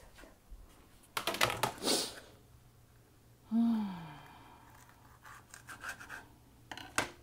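A knife cutting a Scotch bonnet pepper on a cutting board: a quick run of scraping clicks about a second in, then a few light taps and one sharp click near the end. A short falling hum from a person's voice comes around the middle.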